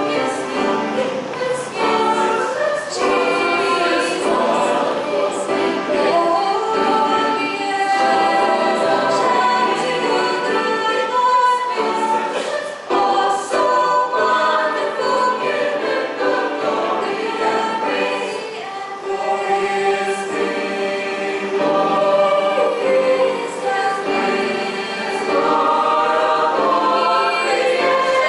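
A choir singing a hymn, many voices together.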